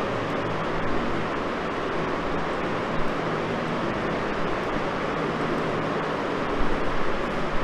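Steady background noise with a faint low hum, and a few soft bumps.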